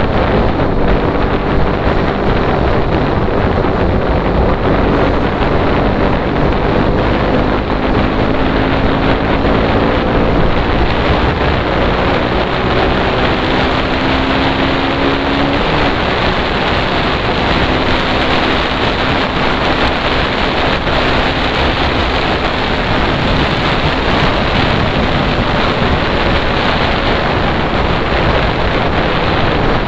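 Heavy wind buffeting the microphone at riding speed on a KTM Duke 125, with the bike's single-cylinder engine faintly audible underneath, its note rising in pitch several times as it accelerates.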